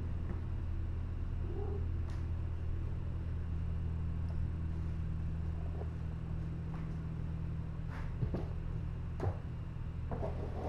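Steady low hum under light taps and scuffles of kittens playing on a hard floor, with a louder rustle near the end.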